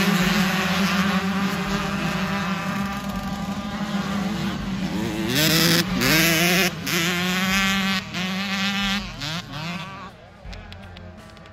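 A pack of youth motocross bikes, 85 cc and 65 cc two-strokes, revving as they pull away from the start. Their engine notes climb and fall again and again. The sound fades about ten seconds in as the pack moves off.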